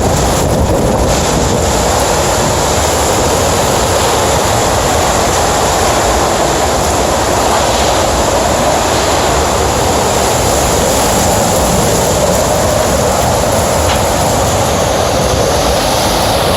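Category 4–5 hurricane wind blowing hard and without let-up, a dense, unbroken rushing noise like a passing train.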